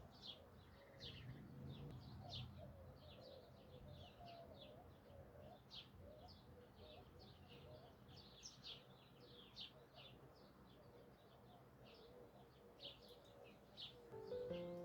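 Faint birdsong: many small birds chirping in quick, high, short notes, with lower wavering calls underneath.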